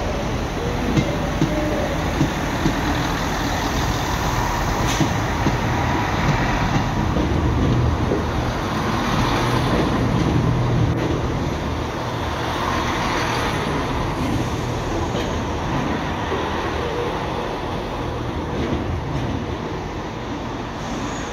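Diesel multiple-unit trains running through a station platform: a steady engine rumble and wheel noise. There are a few sharp clicks over the first seconds, and the engine drone is loudest around the middle as a unit passes close by.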